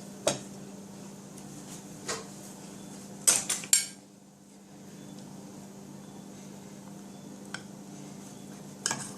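Kitchen dishes and utensils knocking and clinking: a few scattered sharp knocks, with a louder cluster of clatter about three seconds in. A faint steady hum runs underneath.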